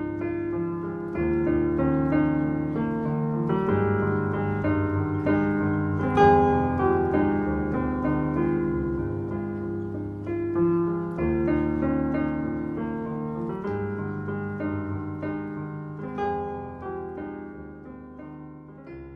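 Slow solo piano music, with separate notes ringing over one another, growing quieter over the last few seconds as it fades out.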